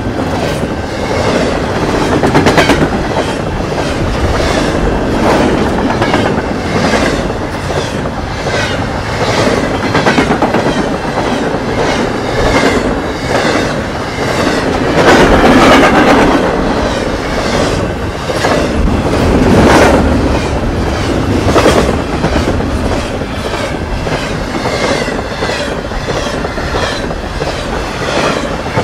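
Double-stack intermodal freight train passing close by at speed: a continuous loud rumble of steel wheels on rail, with repeated clicks as the wheels cross the rail joints, swelling louder in places as the well cars go by.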